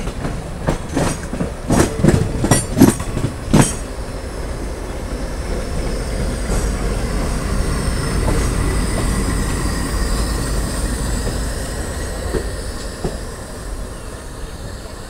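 Passenger train wheels running on the track, heard from on board. A run of loud clattering knocks in the first few seconds as the wheels cross rail joints or points, then a steady rumble with a faint high wheel squeal through the middle.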